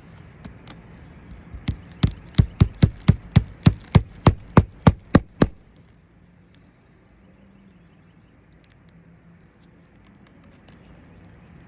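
Hammer nailing down ridge shingles: a few light taps, then a fast run of about fifteen strikes, about five a second, that stops about halfway through.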